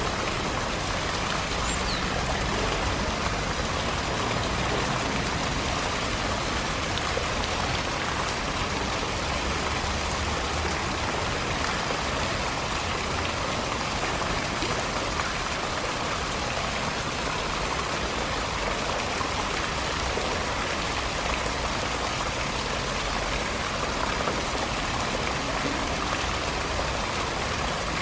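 Steady pattering and rushing of water falling onto a pool's surface, even and unbroken.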